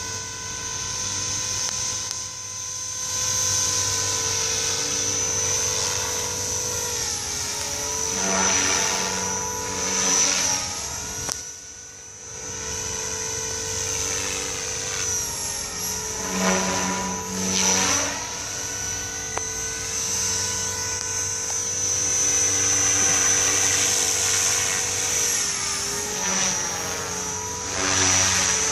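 Blade 500 electric RC helicopter flying aerobatics overhead: a steady high motor and rotor whine. Three times it grows louder while its pitch sweeps up and down, and it drops away briefly about twelve seconds in.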